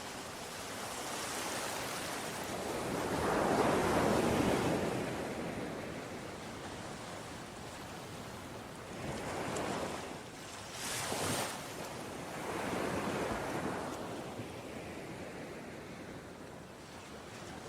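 Ocean waves breaking and washing ashore in surges, the biggest swell about four seconds in, followed by several smaller ones and a short sharp splash near the middle.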